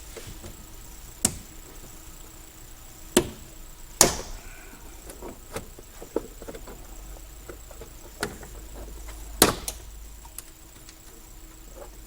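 Sharp snaps and knocks, about five loud ones spread out with lighter ticks between, from hand work on old, dry-rotted plastic push clips: prying out and breaking them.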